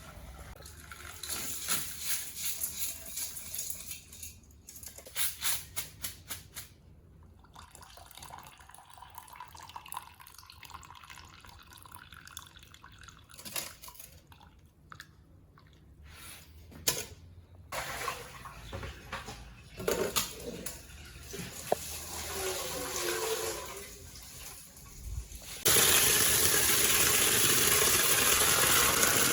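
Water splashing and dripping in irregular spurts with light clicks as food is washed by hand in a basin; near the end a tap is turned on and runs steadily at full flow, louder than anything before it.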